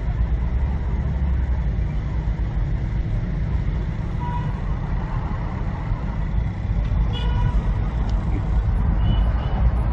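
Steady low rumble of diesel bus engines idling and running in a packed bus yard, with a few faint short horn toots.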